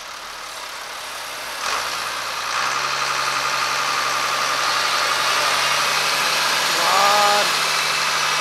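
New Holland tractor's diesel engine working hard under load while towing a lorry up a snowy hill, stepping up louder about two and a half seconds in and holding there. A short rising squeal comes about seven seconds in.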